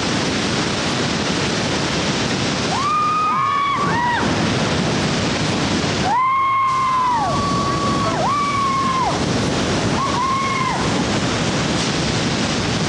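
Steady rush of a 30-foot waterfall and whitewater. Over it, in the middle, come four or five drawn-out high calls, each rising, holding and falling away.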